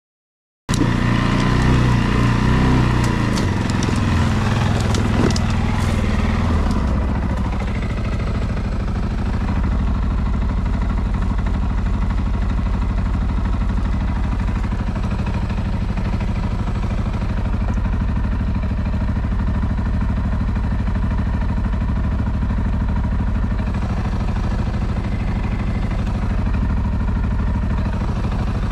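ATV engine running steadily under way, cutting in abruptly just under a second in, with scattered clicks and rattles over it for the first several seconds.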